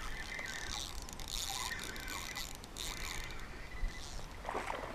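Fishing reel being cranked as a lure is retrieved: a light, uneven mechanical whirring.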